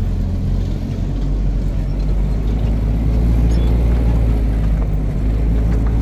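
Steady low rumble of a vehicle's engine and road noise, heard from inside the moving vehicle.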